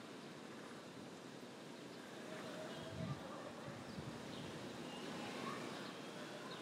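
Quiet outdoor ambience: a steady background hiss and hum, with a few faint high chirps and two soft low thumps about three and four seconds in.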